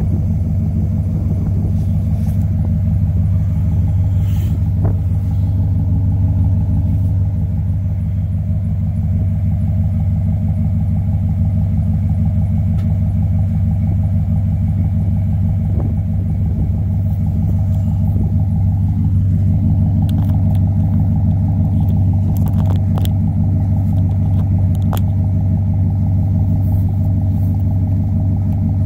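Chevrolet Silverado's exhaust running at a steady idle through an 8-inch polished exhaust tip: an even, low rumble.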